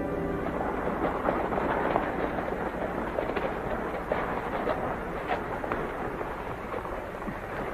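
Several horses walking on a dirt street, with irregular hoof clops over the steady hiss of an old film soundtrack.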